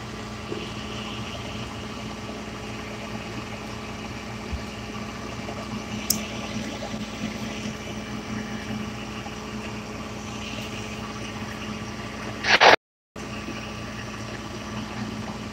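Flatbed tow truck's engine idling steadily, a constant low hum. Near the end a short loud scrape is followed by a momentary cut-out of the audio.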